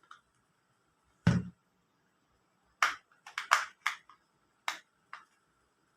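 Clicks and snaps of a plastic power bank casing being handled and pried open: a single knock about a second in, then a quick run of sharp clicks.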